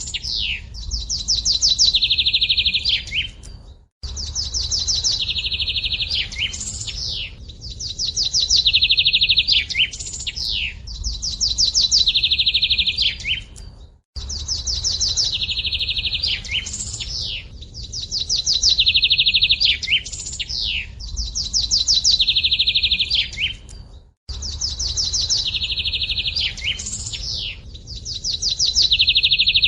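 A songbird singing the same phrase over and over: a rapid high trill followed by a few quick downward-sliding notes, about one phrase every two seconds. The recording loops about every ten seconds.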